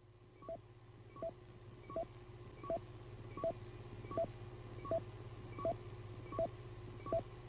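Electronic sci-fi bleeps from a 1960s puppet TV soundtrack: a short, fairly high bleep repeating evenly about every three-quarters of a second, over a steady low electrical hum.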